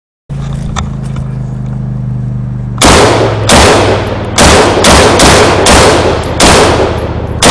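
Gunfire at a machine-gun shoot: from about three seconds in, a string of loud shots or short bursts, roughly one every half second, each ringing out briefly. A steady low hum runs underneath from just after the start.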